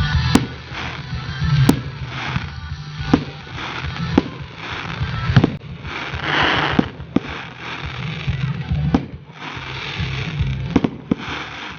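Aerial fireworks going off: a sharp bang every second or two with crackling in between, over music with a steady bass.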